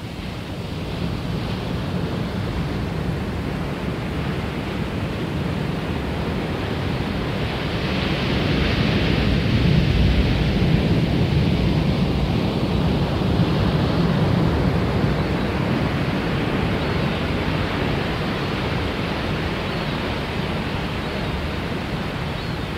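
Steady rushing noise of sea and wind, swelling louder in the middle and easing off toward the end.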